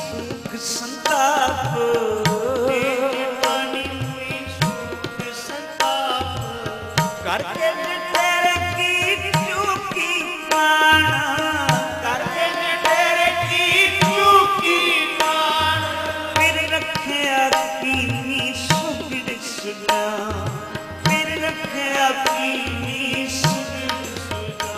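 Sikh kirtan: a devotional melody sung over harmonium, with tabla keeping a steady rhythm.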